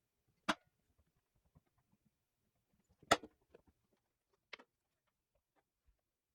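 Three sharp knocks or clicks over near silence: one about half a second in, the loudest about three seconds in with a few small ticks after it, and a softer one about four and a half seconds in.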